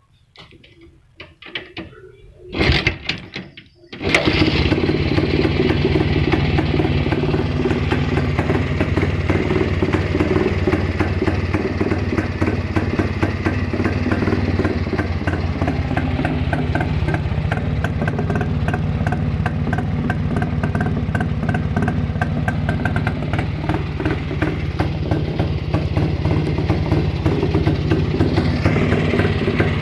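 Rajdoot 175 cc single-cylinder two-stroke motorcycle engine being started. After a few knocks and a brief burst, it catches about four seconds in and runs steadily, with a slight rise in revs near the end.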